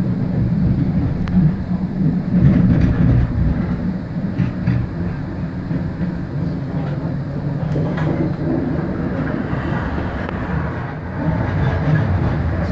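Passenger train running along the track, a steady low rumble with a few faint clicks from the rails.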